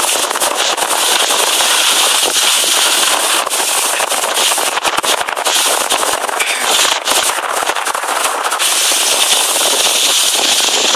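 Skis sliding and scraping over groomed snow on a downhill run: a loud, continuous gritty hiss full of crackles.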